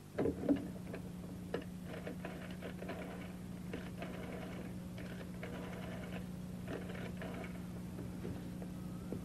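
A desk telephone receiver is picked up with a couple of knocks, then the phone is dialled, giving a run of faint clicks over a steady low hum.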